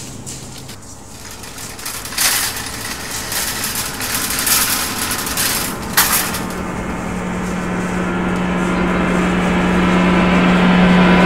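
Dramatic TV soundtrack audio: a few noisy hits and sharp knocks, then from about halfway a low droning tone held at one pitch that swells steadily louder.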